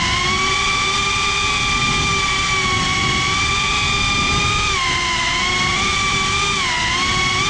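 FPV quadcopter's brushless motors and propellers whining steadily, heard from the GoPro on the drone itself; the pitch dips briefly twice, about five seconds in and near the end.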